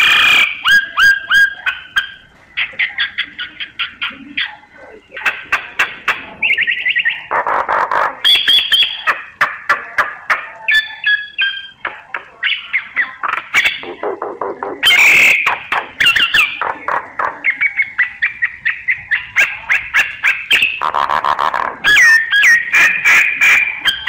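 Myna singing: quick phrases of rapid clicking chatter mixed with whistled notes and harsh, grating calls, with brief pauses between phrases.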